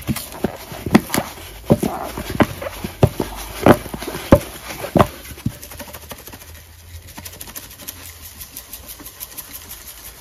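Cardboard canister of Ajax powder cleanser shaken and tapped over a bowl, about a dozen sharp taps in the first five seconds, followed by a softer, finer crackle.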